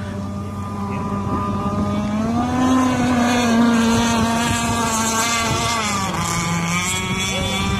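Radio-controlled speed boat's motor running flat out as the boat skims across the water, a steady pitched note that rises about two and a half seconds in and drops back again near six seconds.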